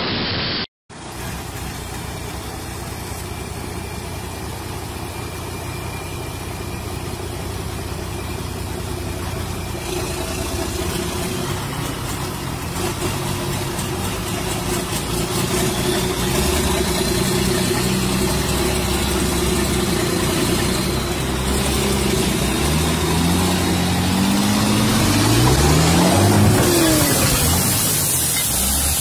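Heavy logging truck's diesel engine running under load, its revs climbing steadily over the last several seconds.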